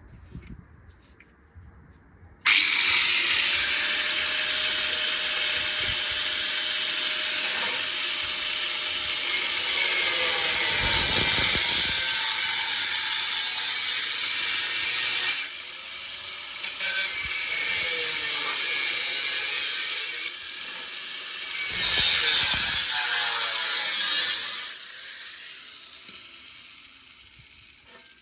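Power tool cutting car-body sheet steel, starting sharply about two and a half seconds in, running steadily with two brief drops in level partway through, and stopping a few seconds before the end.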